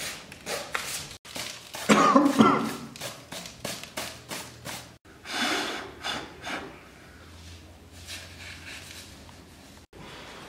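A man coughs hard about two seconds in, then blows a puff of breath across a dusty book a few seconds later. Light knocks of books being handled and footsteps on a stone floor come between.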